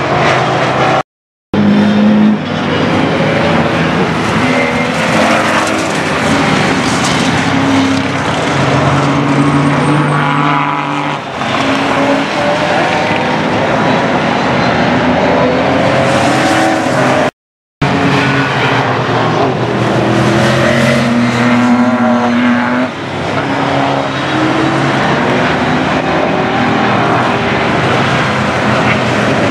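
Historic racing cars' engines passing at speed one after another. The engine pitch rises and falls as they accelerate and change gear. The sound cuts out completely twice, briefly.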